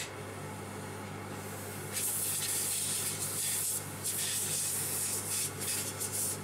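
Repeated bursts of high hissing that start about two seconds in and come and go, over a steady low electrical hum that starts at the outset.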